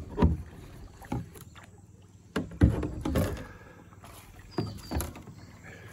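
Kayak paddle strokes dipping and splashing in shallow water, a few irregular splashes with the loudest cluster a little under three seconds in.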